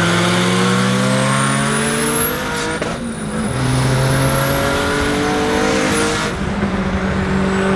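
Car engine at full throttle heard from inside the cabin. The revs climb steadily, drop at an upshift about three seconds in, and climb again until they fall off about six seconds in. A thin high whistle rises with the revs.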